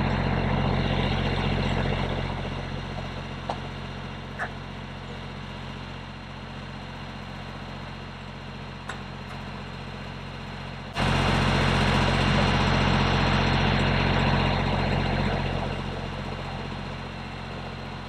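Kioti compact tractor's diesel engine idling steadily. Its level drops a little about two seconds in, jumps back up suddenly about eleven seconds in and eases off again near the end, with a few faint clicks along the way.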